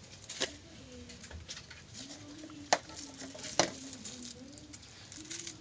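A bird cooing in a low, wavering series of rising-and-falling notes. Three sharp clicks cut in, the two loudest about a second apart near the middle.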